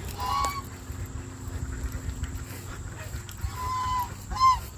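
Penned farm fowl giving a few short, high calls: one about half a second in, a longer held call past three seconds, and a quick one near the end, over a low steady rumble.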